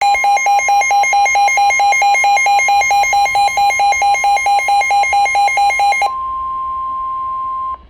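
NOAA Weather Radio warning alarm, a single steady tone, with a weather radio receiver's alert beeping rapidly over it, about five beeps a second. About six seconds in the beeping stops and the steady tone runs on alone, cutting off just before the end.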